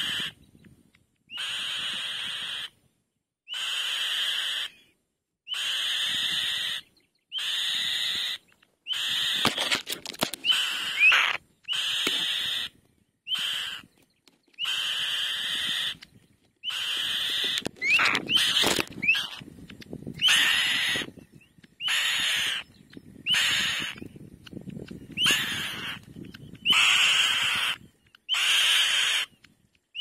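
Black-winged kites calling at the nest: a call about a second long, repeated roughly every two seconds, with a few shorter calls that glide upward mixed in past the middle.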